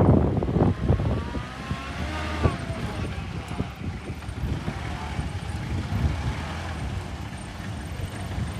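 A vehicle's engine running with a steady low rumble, scattered knocks, and faint voices about a second in.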